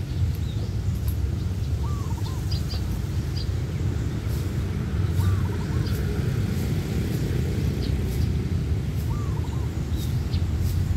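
A bird calling three times, a short rising note followed by a few quick notes, about every three and a half seconds, with faint high chirps from other birds, over a steady low rumble.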